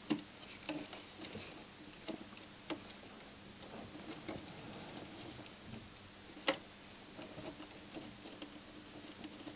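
Faint scattered clicks and small crackles of soldering a wire onto a circuit board with a soldering iron, with two louder clicks, one right at the start and one about six and a half seconds in, over a faint steady hum.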